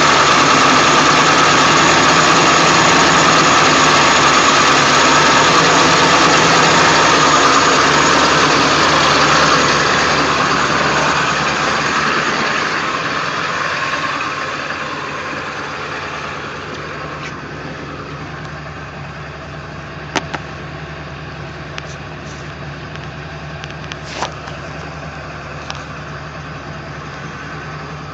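1999 Ford F350's 7.3L Power Stroke V8 turbo diesel idling rough, the engine shaking in a way the owner cannot yet explain. The sound is loudest for the first ten seconds or so, then eases down to a steadier, quieter running, with a few faint clicks in the second half.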